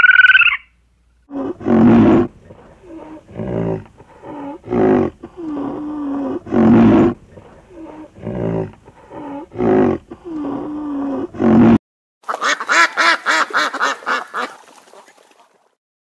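Animal calls in several cut-together clips. A brief high call is followed by a string of short pulsed calls, one every second or so, some much louder than others. Near the end comes a fast rattling run of calls that fades away.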